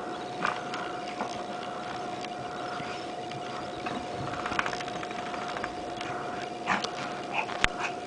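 Yorkshire terrier rubbing and rolling on a towel on carpet after a bath, making scuffling and rustling sounds with a few sharper knocks near the end. A steady tone hums underneath.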